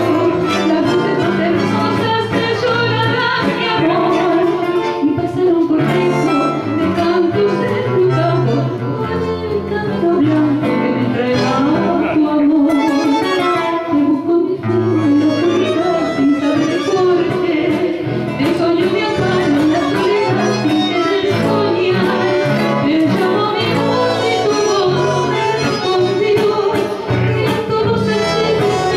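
A woman singing a song through a microphone with guitar accompaniment, performed live.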